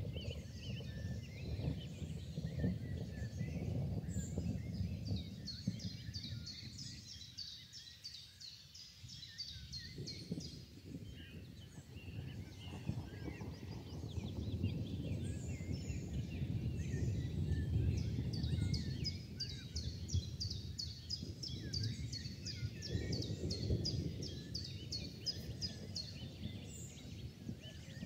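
Outdoor evening ambience: a low rumbling background noise that swells and fades, with two runs of a rapid high-pitched chirping, about three or four chirps a second, one beginning a few seconds in and the other in the second half.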